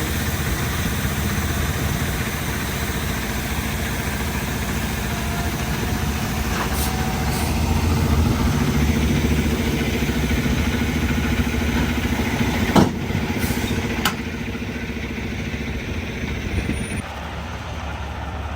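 Peterbilt 579's Cummins X15 diesel engine running steadily, with a sharp knock about two-thirds of the way through and a smaller one a second later. The engine's low note drops away near the end. The engine has a cylinder 3 misfire.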